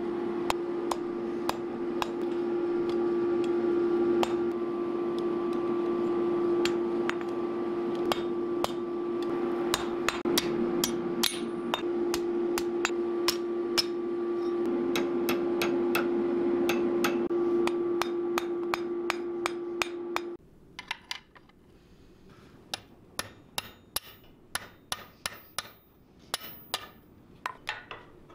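Hand hammer striking hot iron on an anvil in quick, irregular blows, over a steady hum that stops about two-thirds of the way through. After that, lighter and sparser taps and clicks continue.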